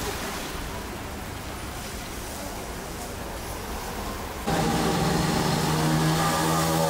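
Street traffic: cars driving past. About two-thirds of the way through, the sound cuts suddenly to a louder, closer vehicle engine with a steady low hum.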